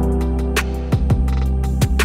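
Background music with a steady beat: deep electronic bass-drum hits that drop in pitch, about one a second, over held bass notes.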